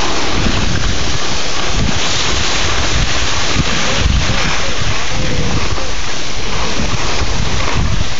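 Wind buffeting a moving microphone in uneven low gusts, over a steady rushing hiss of skis sliding on snow while skiing downhill.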